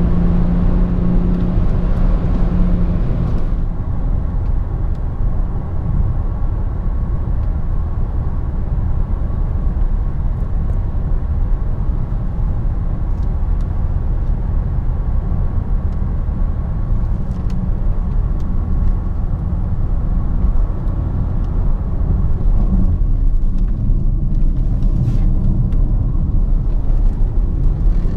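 Cabin noise in a DS7 Crossback 2.0 BlueHDi 180 four-cylinder diesel SUV slowing from about 158 km/h: steady road rumble with wind hiss and a low engine hum. The engine hum and most of the wind hiss fall away about three and a half seconds in, leaving even road rumble as the speed drops toward 100 km/h.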